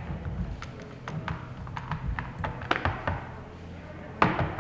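Scattered light taps and clicks over a steady low hum, with a louder knock about four seconds in.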